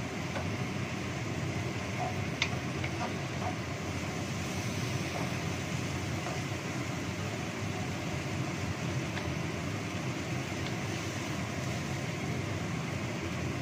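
Spice paste frying in oil in a wok, with a steady sizzle and a few light knocks of a wooden spatula against the pan as it is stirred, the clearest about two seconds in.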